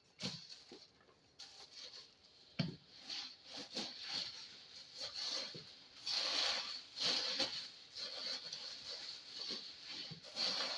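A cardboard shipping box and its packing being handled and opened: irregular rustling, scraping and scratching with a few sharp clicks.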